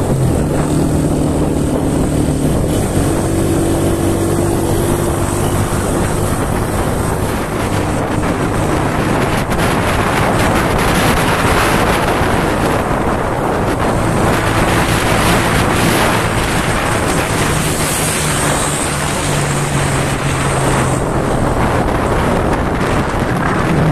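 Motorcycle engine running while riding along a road, with wind rushing over the microphone; the engine note shifts up and down a few times.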